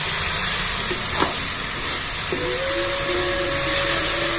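Guar beans frying in a steel kadhai, sizzling steadily as they are stirred with a metal spatula, with one sharp knock about a second in. About two seconds in, a steady humming tone starts, with a second tone wavering below it.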